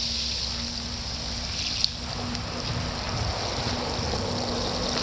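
Steady hiss of water spraying from a hose onto potted succulents, with a steady low hum beneath and one sharp click a little under two seconds in.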